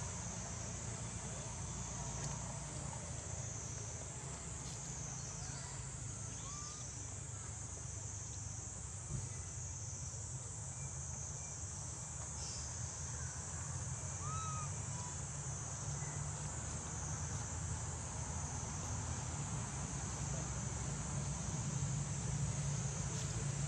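Steady high-pitched drone of insects over a low steady hum, with a few short faint chirps near the middle.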